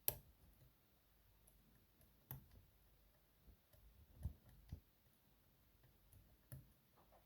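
Faint, scattered clicks of a hook pick working the pins of a six-pin Ruko pin-tumbler lock: a sharper click at the start and about five more spread irregularly over several seconds.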